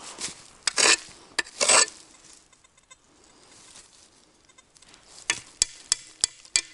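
Small spade scraping through soil and leaf litter twice, then about five sharp taps in quick succession near the end as a small dug-up find is knocked against the spade blade.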